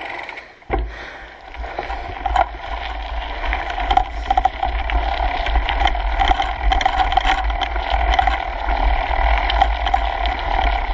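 Kona Coiler full-suspension mountain bike riding a gravel forest trail, heard from a handlebar-mounted camera: tyres rolling on gravel and the bike rattling and clicking over bumps, over a steady low wind rumble. A sharp knock comes near the start, and the noise builds from about a second in as the bike picks up speed.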